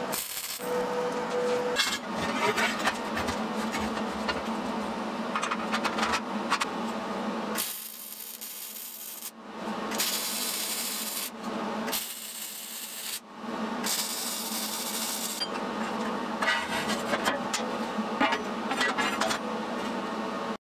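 MIG welder arc crackling and hissing as welds are laid on steel square tubing, in several stretches with short breaks between them.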